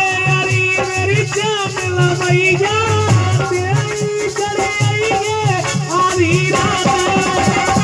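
A man singing a song into an amplified microphone, in long held, wavering notes, over a steady percussion beat with a rattling shaker.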